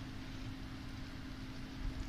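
Steady kitchen background noise: an even hiss with a constant low hum underneath.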